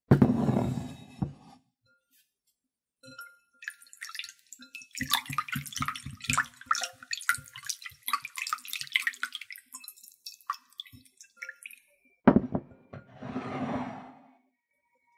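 Water rushing into a glass bowl, then a hand swishing loose salmon roe in the water with many small splashes and drips while rinsing off the fine membranes. About twelve seconds in there is a sharp knock, followed by another short rush of water as it is drained off.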